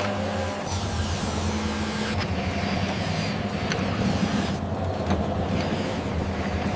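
Remote-control toy crawler excavator running: a steady motor hum with a few faint clicks.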